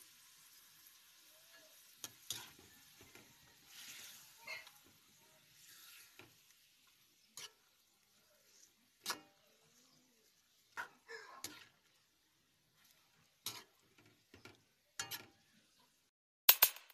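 Metal spatula clinking and scraping against a metal wok as chicken pieces are stirred, in separate knocks every second or two, over a faint frying sizzle at first. Loud music cuts in at the very end.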